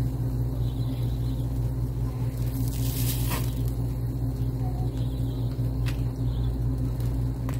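Steady low mechanical hum, unchanging throughout, with a brief click about three seconds in.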